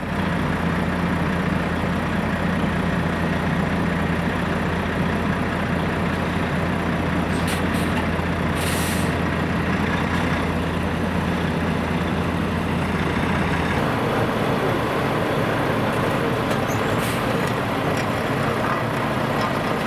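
Heavy road-works vehicle's engine running steadily, with a short hiss of air about nine seconds in. The engine's low steady hum drops away around fourteen seconds and the running note changes.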